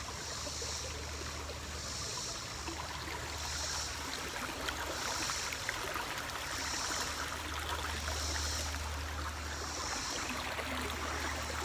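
Stream water flowing steadily, with a high hiss that pulses about every second and a half.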